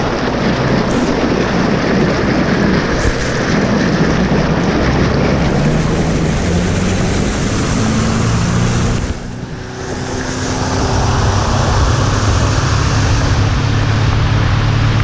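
G3 aluminum fishing boat running at speed: water rushing and spraying along the hull, the outboard motor's drone underneath, and wind on the microphone. The sound drops briefly about nine seconds in.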